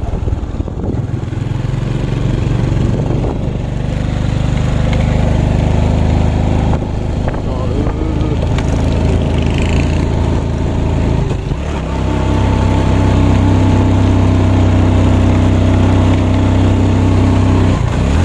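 Motorcycle engine running steadily while riding along a road, with a short dip about eleven seconds in, then running louder and steadier for the rest.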